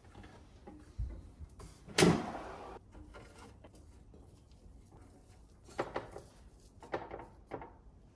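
Philips Airfryer XXL basket drawer pulled open with a clunk about two seconds in, then a few soft knocks as breaded chicken pieces are laid on the mesh basket.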